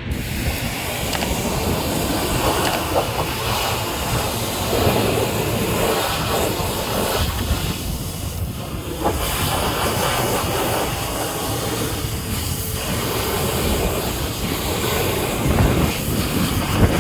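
High-pressure washer jet spraying onto a muddy truck: a steady, loud hiss of spray with water splattering off the body, easing briefly about eight seconds in.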